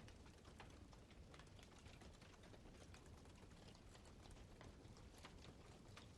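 Wood campfire crackling faintly: small, irregular sharp pops and snaps, several a second, over a low steady rumble of the burning.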